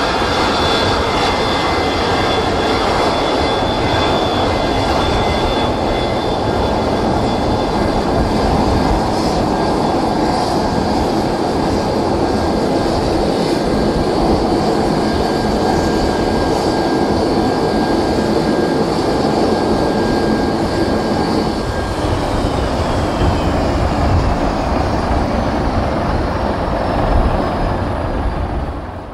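Boeing 737-200's twin Pratt & Whitney JT8D-15A turbofan engines running at taxi idle, a loud rumble with a steady high-pitched whine. About 22 seconds in, the whine starts falling in pitch as the engines spool down with the jet coming to a stop on the stand, and near the end the sound drops away suddenly.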